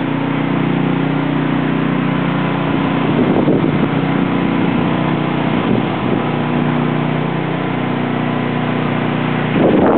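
A small engine running steadily at a constant speed, a low even drone.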